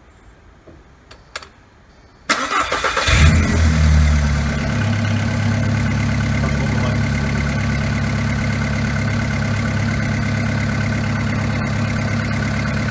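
A VW 1.4 16v BKY petrol four-cylinder engine is cranked by the starter for under a second. It catches about three seconds in, flares up briefly and then settles into a steady idle. It starts at once on a newly fitted aftermarket crankshaft position sensor, a sign that the new sensor is working.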